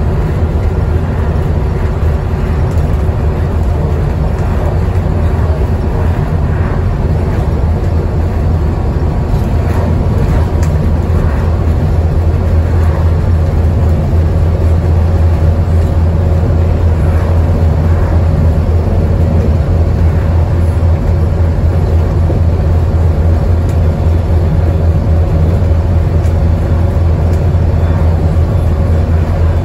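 Interior sound of a Scania Enviro 400 double-decker bus under way: its Scania DC9 five-cylinder diesel runs steadily as a strong low drone, mixed with road and tyre rush. It grows a little louder about ten seconds in.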